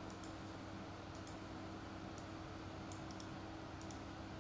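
Faint, scattered clicks at a computer, with several in quick succession near the end, over a steady low hum.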